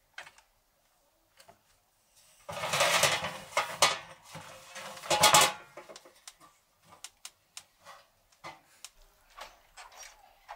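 Someone climbing down through a wooden floor hatch: scattered knocks and scuffs, with two louder scraping, rustling bursts about two and a half and five seconds in.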